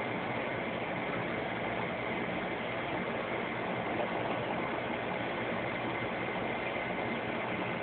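Steady hum and even hiss of a reef aquarium's pumps and circulating water, unchanging throughout.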